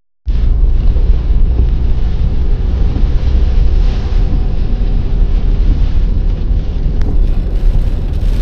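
Wind and road noise in a moving Hyundai i20 Active: a loud, steady low rumble buffeting the microphone, starting suddenly just after the beginning.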